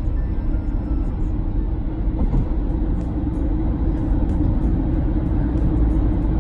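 Steady road and engine rumble heard from inside a moving car, with no other distinct events.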